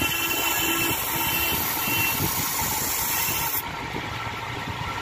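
Bench grinder running while the steel blade of a thread-cutting cutter is held against the spinning wheel to sharpen it: a steady grinding hiss over the motor's hum. About three and a half seconds in the blade comes off the wheel and the hiss thins, leaving the motor spinning.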